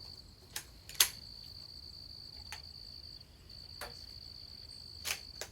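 Crickets trilling steadily in one high, unbroken tone. A single sharp crack comes about a second in, with a few fainter clicks scattered through the rest.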